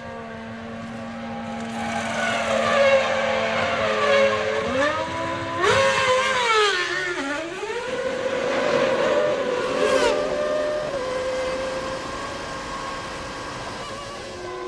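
1996 Formula One cars' 3-litre naturally aspirated engines at high revs. Their pitch drops in quick steps as they change down for a corner, then climbs again as they accelerate away, with several cars overlapping and a brief crack about ten seconds in.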